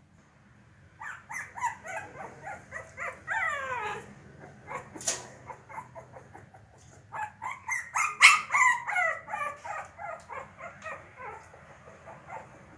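Shih Tzu puppy yipping and whining in quick runs of short high cries. The first run ends in a falling whine. After a single sharp click, a longer run of yips grows loudest partway through, then fades.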